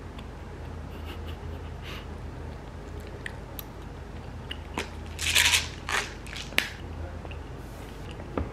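Close-up eating sounds: chewing rice cake with small mouth clicks, and a louder burst of crunching and rustling about five to six seconds in. A steady low hum runs underneath.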